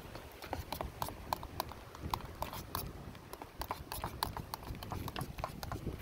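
A spoon clinking and scraping against a camping cook pot while soup is stirred: a run of sharp, irregular clicks, several a second.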